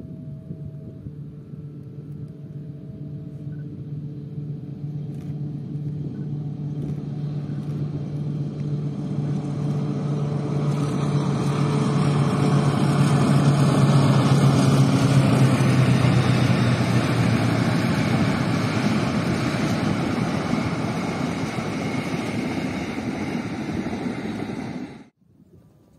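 A CC 203 diesel-electric locomotive hauling four coaches approaches and passes: the diesel engine's steady drone grows louder, joined by the rush and clatter of wheels on the rails as the train goes by. Two short horn toots sound near the start, and the sound cuts off suddenly about a second before the end.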